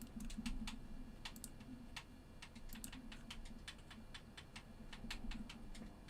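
Computer keyboard being typed on: faint, irregular key clicks, several a second, over a low steady hum.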